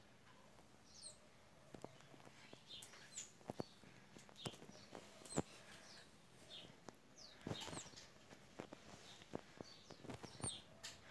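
Faint handling noise: scattered sharp clicks and knocks as school notebooks and a backpack are moved, the loudest about five seconds in. Short, high chirps of small birds sound in the background throughout.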